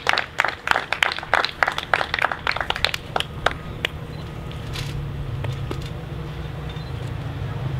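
A small group clapping, dying away a little past halfway; then a low steady drone builds up.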